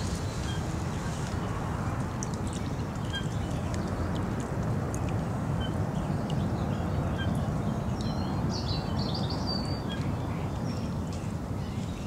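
Birds calling over a steady outdoor background hiss: scattered short, high chirps, with a denser burst of calls about eight to nine seconds in.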